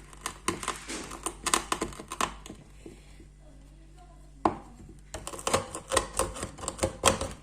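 Rapid, sharp knocking and crunching of burnt bitter kola being crushed to a powder, about three or four strikes a second. It comes in two runs with a pause of about two seconds in the middle.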